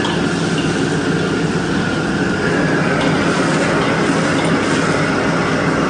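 Steady roar of a commercial wok stove's burner as meat is stir-fried in an iron wok, with a few faint clicks of the metal ladle against the wok.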